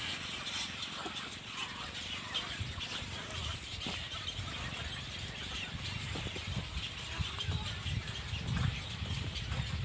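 Many birds calling over one another in a continuous busy chatter, over a low rumble.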